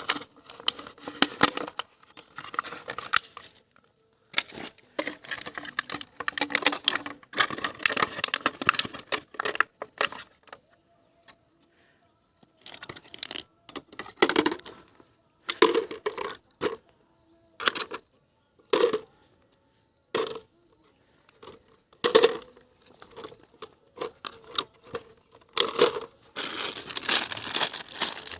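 Plastic bottle fish trap crinkling and knocking as it is handled, in irregular bursts of crackling with short pauses between.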